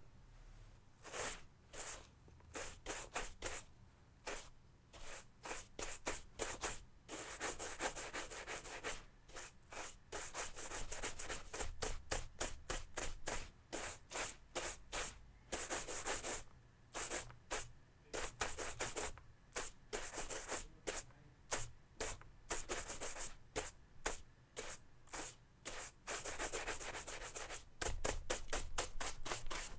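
A brush scrubbing against a surface. Runs of quick, short, rhythmic strokes alternate with several longer stretches of continuous brushing.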